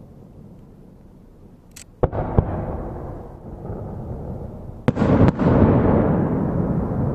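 Aerial firework shells bursting: two sharp bangs about two seconds in, then two more, louder, about five seconds in. Each pair is followed by a long rumbling echo that fades slowly.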